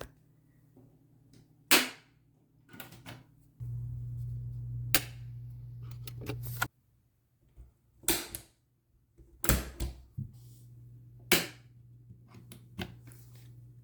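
GFCI outlet test and reset buttons being pressed: a series of sharp snapping clicks as the outlet trips and resets. A low steady hum runs between some clicks, cutting off with one click and returning after a later one.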